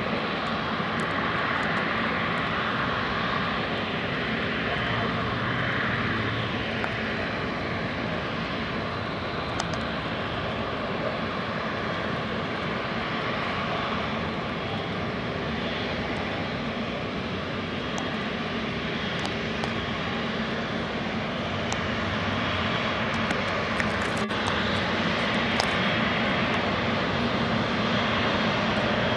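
Boeing 777's twin turbofan engines running at low taxi power as the airliner rolls past: a steady jet rush and whine, swelling slightly near the end.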